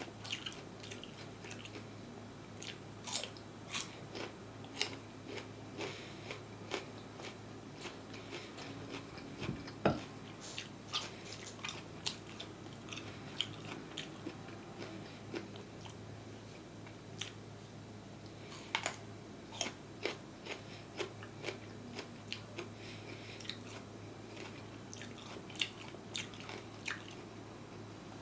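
Close-miked eating sounds: a person biting and chewing food, with many short crisp clicks and smacks throughout and one louder thump about ten seconds in. A steady low hum runs underneath.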